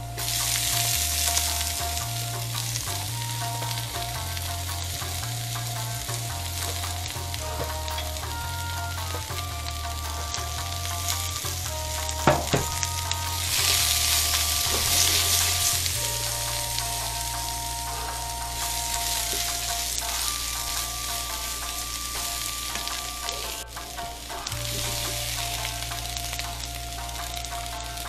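Cabbage and carrot strips sizzling as they stir-fry in a frying pan, turned with a wooden spatula. The sizzle grows louder as the cabbage goes in and again about halfway through, with one sharp knock just before.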